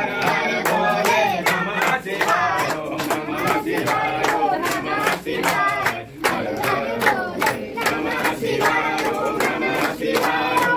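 A group of worshippers chanting together, many voices overlapping at once, with frequent sharp clicks among them.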